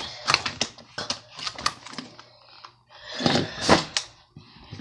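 Close-up handling noise: a quick run of clicks and rattles, with a louder rustling swell about three seconds in.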